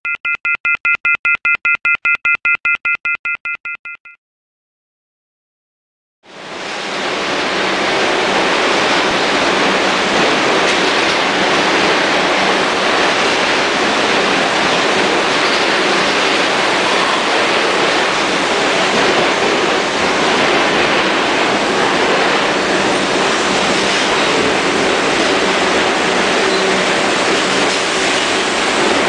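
A short electronic intro jingle of three steady tones pulsing rapidly for about four seconds. After a brief silence, a New York City subway train runs past the station platform with a loud, steady rushing noise.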